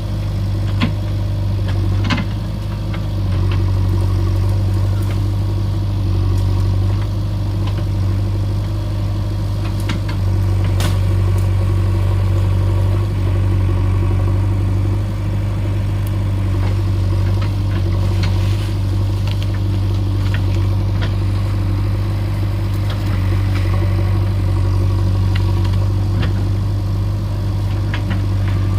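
Diesel engine of a JCB 3DX backhoe loader running steadily, with short clanks and knocks now and then.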